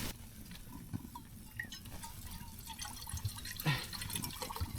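Faint, irregular drips and small ticks of water in a pan on a gas camping stove, with one slightly louder click near the end.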